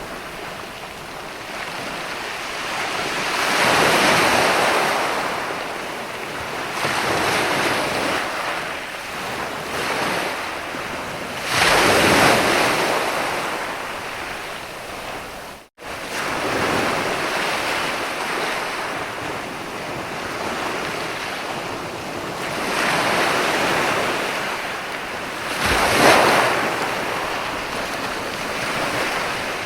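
Ocean surf: waves breaking and washing up, the rush swelling and falling every few seconds, with sharper, louder breaks about twelve and twenty-six seconds in. The sound drops out for an instant about halfway through.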